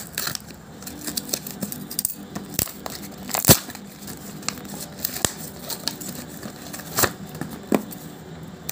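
Cardboard packaging torn and handled by hand, crackling and crinkling with many sharp clicks; the loudest snap comes about three and a half seconds in.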